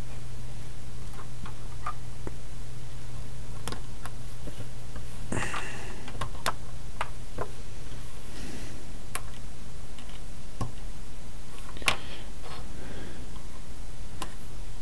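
Scattered light clicks and taps of small circuit boards and breadboards being picked up and set down on a cutting mat, with a brief soft rustle of a paper packet about eight seconds in, over a steady low hum.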